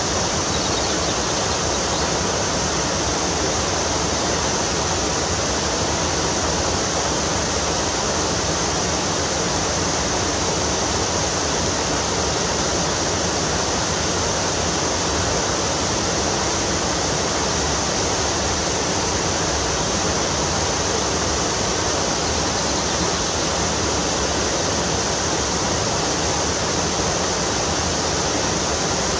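Steady rushing water of a river or stream, an even, unbroken hiss.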